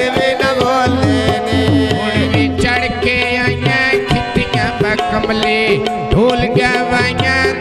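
Punjabi mahiya folk song: a male voice singing over tabla, whose low drum strokes slide in pitch, with steady held tones underneath.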